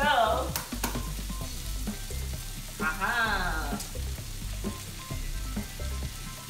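Mixed vegetables frying in a nonstick pan, a steady sizzle with light clicks and taps as an egg is cracked over the pan. Two short sliding vocal sounds, near the start and about three seconds in.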